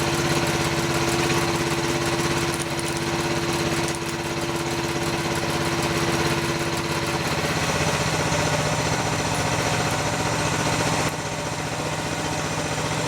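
Mini excavator's engine running steadily, with a steady whine that stops about seven seconds in.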